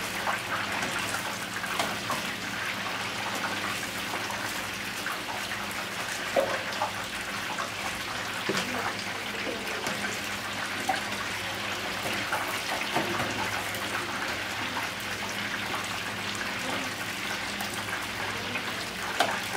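Duck wings deep-frying in hot oil: a steady crackling sizzle with a few louder pops, over a faint steady low hum.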